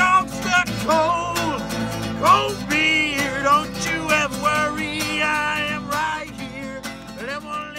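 Background song: a singer over acoustic guitar.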